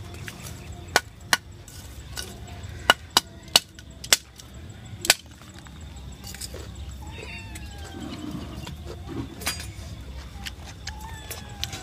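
Close-up eating sounds: a run of sharp clicks and crunches in the first half, over a steady low background rumble.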